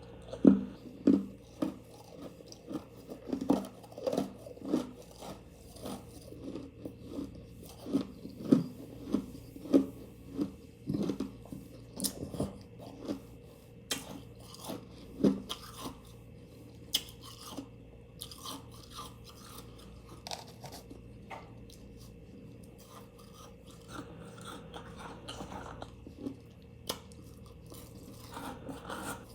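A person chewing refrigerator freezer frost, with repeated crunches that come thick and fast for the first fifteen seconds or so and then thin out to scattered smaller crunches.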